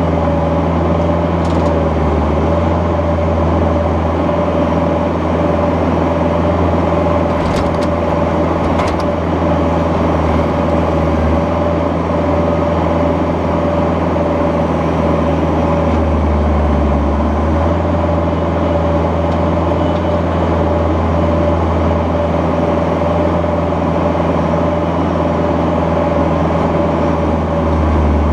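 Bobcat 430ZHS mini excavator's diesel engine running steadily under digging load, heard from the operator's cab, with a steady whine over the engine hum. Two sharp clanks come about 7 and 9 seconds in, and the engine note shifts briefly around 16 seconds in.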